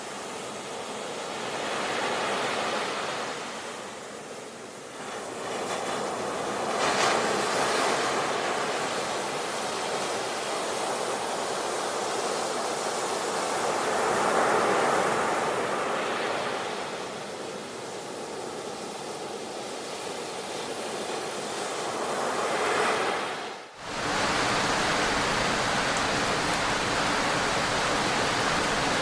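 Ocean surf: waves swell in and wash out every several seconds. Near the end it cuts abruptly to a steady, even rush of water.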